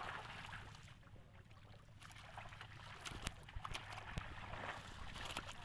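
Faint water sloshing and splashing in a pond, with scattered small splashes and clicks in the second half.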